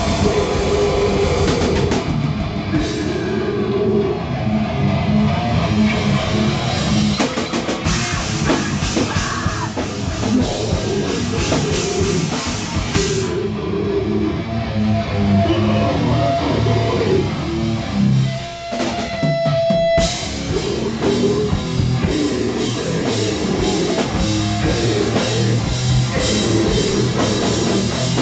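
Rock band playing an instrumental stretch, with heavy distorted guitar over a pounding drum kit. About eighteen seconds in, the band thins out briefly to a single held high note, then comes back in full about two seconds later.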